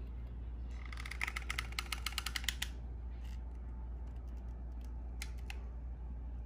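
Hot glue gun's trigger being squeezed to feed the glue stick: a quick run of clicks for about two seconds, then a few scattered clicks, over a steady low hum.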